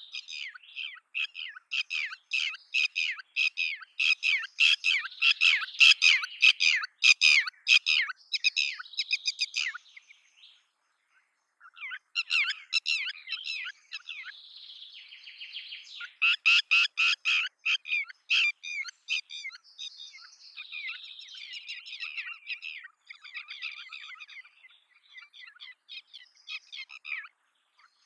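Red-wattled lapwing calling in quick runs of sharp, high-pitched notes, several a second, with a short pause about ten seconds in before the calling starts again.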